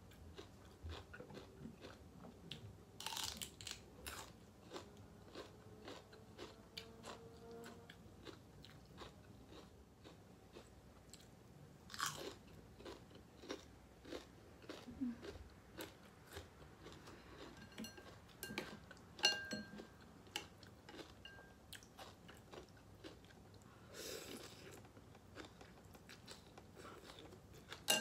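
Close-up chewing of pho noodle soup with meatballs: soft, wet mouth clicks throughout, with a few longer, noisier bursts about three seconds in, around twelve seconds and near the end.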